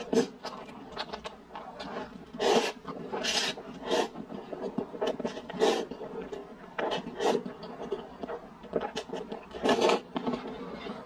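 Close-miked slurping of instant noodles. Several loud slurps come at uneven intervals, with smaller wet chewing clicks between them.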